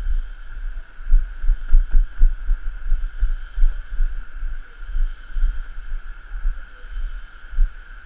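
Dull, irregular low thumps of footsteps on a suspension footbridge's walkway, carried through to a body-worn camera, over a steady hiss.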